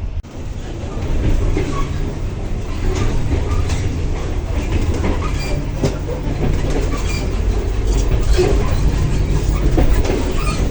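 Inside a moving double-decker passenger coach: a steady low rumble of the running train, with scattered, irregular clicks and rattles from the wheels and the car body.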